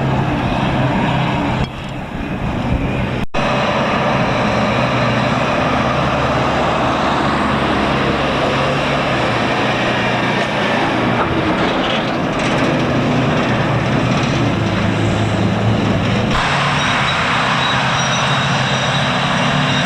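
Heavy diesel earthmoving machinery running steadily under load, with the sound cutting briefly about three seconds in and changing abruptly a little after sixteen seconds.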